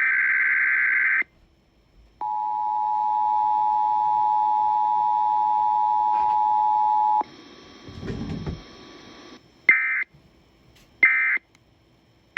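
Emergency Alert System broadcast tones: a buzzing SAME header data burst, then the two-tone EAS attention signal held steady for about five seconds and cutting off. After a brief low sound, three short end-of-message data bursts follow at even spacing.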